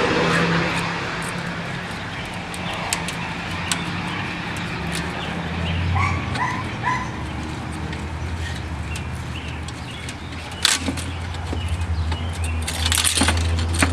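A dog gives three short, high yips about six seconds in, over a steady low hum. Sharp clicks and knocks come near the end.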